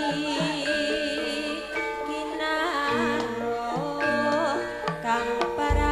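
Live Javanese gamelan-style music: mallet-struck metallophone notes carry the melody, with a low drum stroke near the end.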